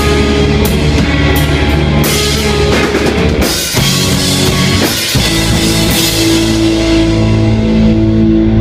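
Rock band playing loud with a full drum kit and crashing cymbals, then settling about five seconds in onto a long held final chord as the song ends.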